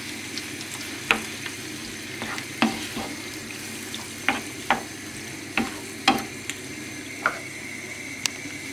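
Vegetables and canned tomatoes sizzling steadily in a frying pan while a wooden spoon stirs them, knocking against the pan about ten times at irregular intervals.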